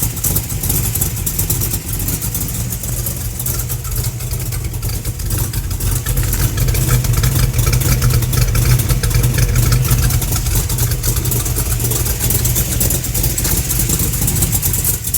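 1972 Camaro Z28's V8 engine and exhaust running, rumbling at idle and growing louder for several seconds in the middle before settling back.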